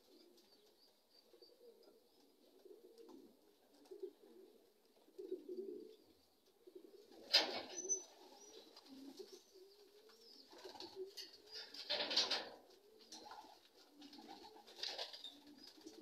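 Racing pigeons cooing, a steady low warbling murmur, with a few brief louder rustling bursts, the loudest about seven and twelve seconds in.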